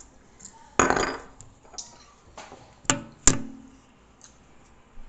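Glass bottles of Red Rooster hot sauce knocking against a glass tabletop. A short handling rustle comes about a second in, then two sharp clinks about three seconds in, the second ringing briefly.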